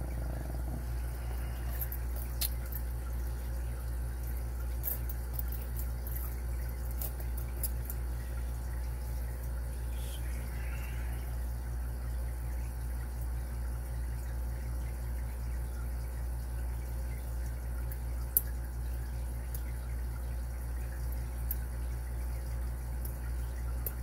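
Sparse faint clicks and ticks of a lock pick working the tapered pin tumblers of a Carbine padlock, with one sharper click about three-quarters of the way through, over a steady low hum.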